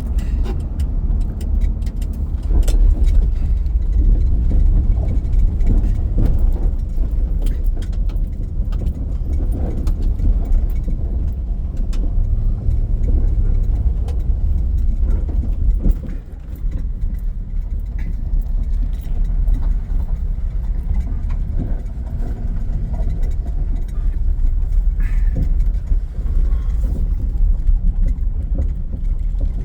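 Dodge Charger's 318 small-block V8 and road noise heard from inside the cabin while driving, a steady low rumble. The loudness dips briefly about halfway through, then picks up again.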